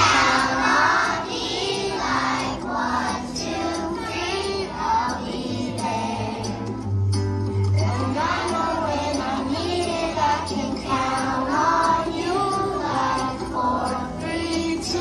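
Children's choir of young elementary pupils singing together over recorded accompanying music with a steady bass line.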